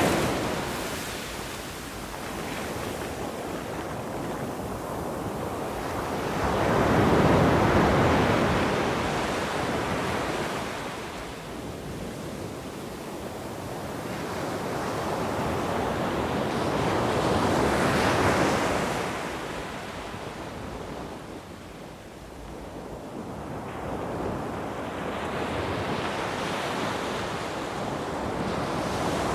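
Sea waves breaking and washing ashore, a steady rush of surf that swells and fades in slow surges, loudest about seven and eighteen seconds in and building again near the end.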